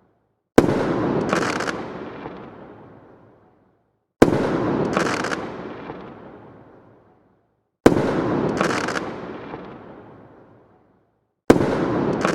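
Aerial firework bursting overhead: a sharp bang, then a crackling sparkle that fades away over about three seconds. The same burst comes four times, about every three and a half seconds.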